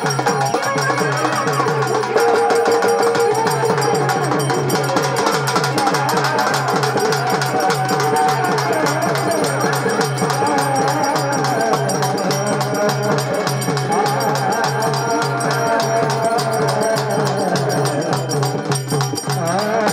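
Traditional Marathi folk music playing, driven by a fast, steady drum beat with a pitched melody line over it.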